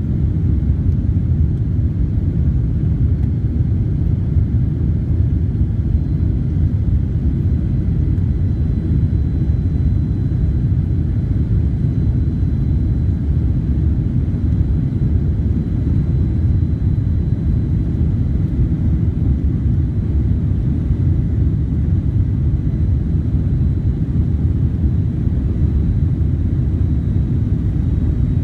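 Steady low rumble of a Boeing 767-300ER's engines and airflow as heard inside the passenger cabin, holding an even level throughout, with a faint high whine above it.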